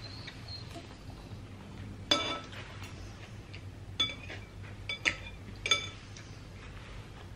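Metal fork and spoon clinking against a soup bowl while lifting noodles, several short ringing clinks, the loudest about two seconds in and the rest between about four and six seconds.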